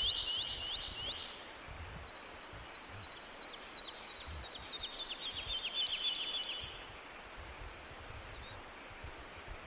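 A bird singing two phrases of quick, repeated high notes that slur downward: the first ends about a second in, and the second, longer one runs from about two to seven seconds in. A low rumble sits beneath throughout.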